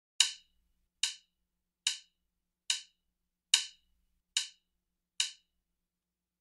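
Wood-block-like percussive clicks: seven sharp strokes at a steady slow beat, a little under a second apart, each dying away quickly.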